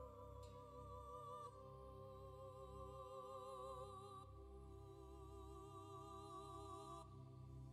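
Quiet background music: slow, held notes with a gentle vibrato, changing to new notes every couple of seconds.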